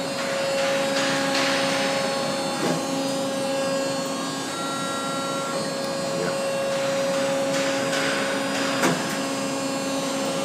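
Hydraulic shear running empty: its motor and pump whine steadily while the blade arm cycles, with a brief hiss about a second in and again near eight seconds, and a sharp click near nine seconds.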